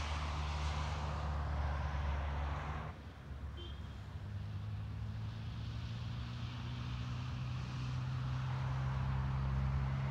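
EMD GT26CW-2 diesel-electric locomotive's two-stroke V16 engine idling steadily during a station stop. A hiss over it cuts off about three seconds in, and the engine's low note shifts slightly at the same moment.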